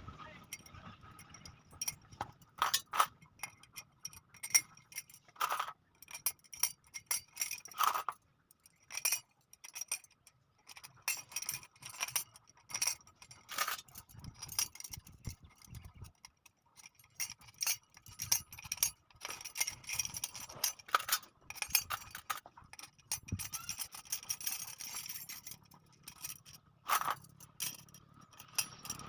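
Steel spokes clinking and jangling against each other and against a new wheel hub and rim as a motorcycle wheel is laced by hand: irregular sharp metallic clicks, some with a short ring.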